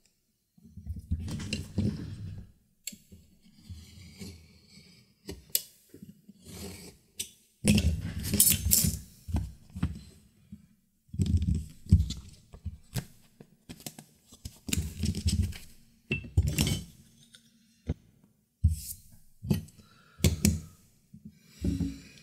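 Irregular clinks, knocks and scrapes of leatherworking tools and leather being handled on a cutting mat: a steel ruler and a utility knife set down, slid and picked up, with heavier thuds on the bench.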